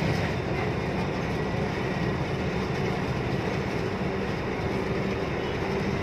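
Steady engine and road noise inside the cab of a moving diesel truck cruising on the highway, a constant low drone with no change in pace.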